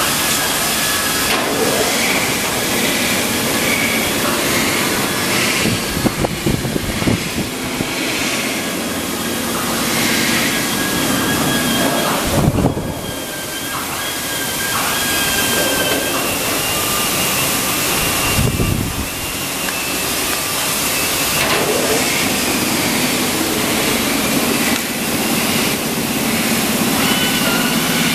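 Abrasive-drum belt sanding machine running in a sheet-metal workshop, finishing stainless steel sink blanks: a loud steady noise with a faint whine. Several irregular thuds along the way, about six, twelve and eighteen seconds in.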